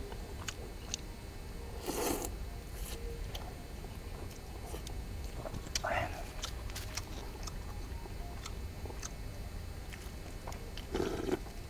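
People eating noodle soup: chewing and small mouth noises, with scattered light clicks and a brief noisy burst about two seconds in.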